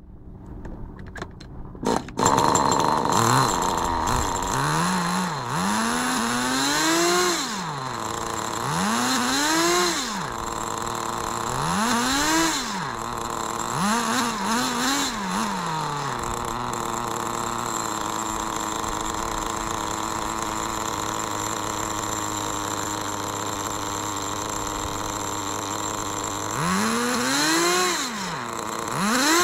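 Nitro RC car's small two-stroke glow engine catching about two seconds in, then revved in about five quick rising-and-falling blips with the wheels off the ground. It settles to a steady idle and is revved twice more near the end.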